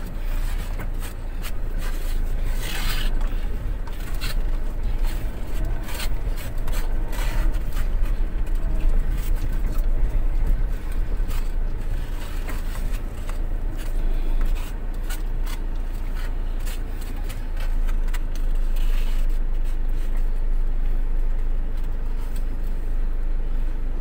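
A vehicle's engine running with a steady low rumble, under repeated scraping and knocking.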